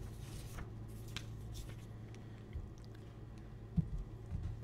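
Quiet room tone: a steady low electrical hum with a few faint clicks and rustles.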